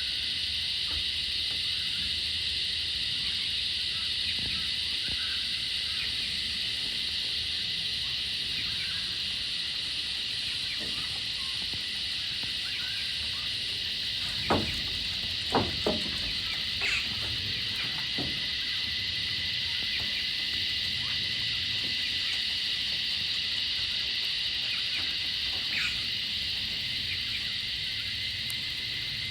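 Australian bush cicadas calling in a steady, high-pitched chorus without a break. A few short sharp clicks sound about halfway through.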